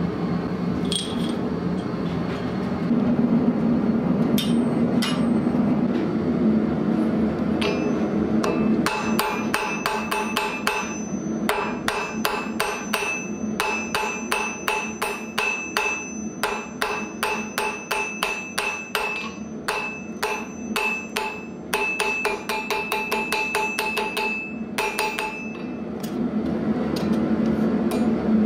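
Hand hammer beating red-hot steel bar on an anvil: rapid runs of blows, about three or four a second, starting about eight seconds in and pausing briefly between heats, each blow with a high ringing note from the anvil. A gas forge burner runs steadily underneath.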